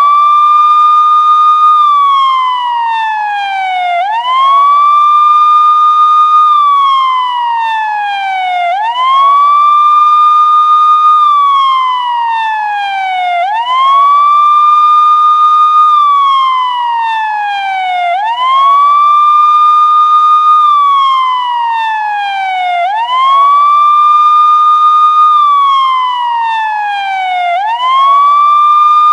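Police siren sounding a repeated wail: each cycle rises quickly in pitch, holds briefly at the top, then slides slowly back down, about every four and a half seconds.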